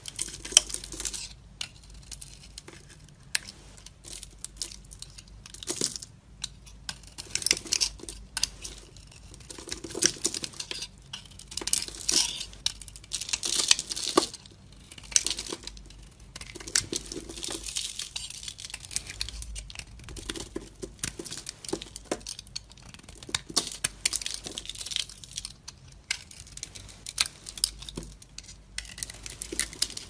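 A small blade cutting and scraping into a bar of soap, repeated crackly strokes as shavings and crumbly chunks break away.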